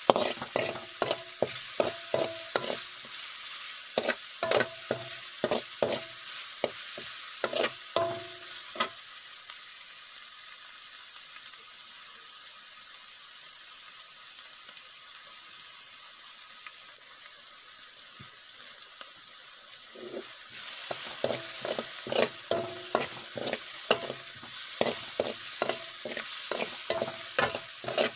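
Metal spoon scraping and clinking against a pan while stirring chopped onion, tomato and green chillies frying in oil, over a steady sizzle; the tomato is being cooked until soft. The stirring stops for about ten seconds in the middle, leaving only the sizzle, then starts again.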